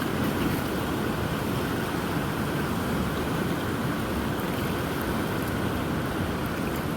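Middle Fork of the Smith River in flood, running high and fast: a steady rushing noise.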